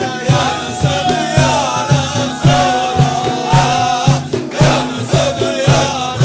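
Naqshbandi Sufi zikr: voices chanting over a steady low beat about three times a second, with one long held note near the middle.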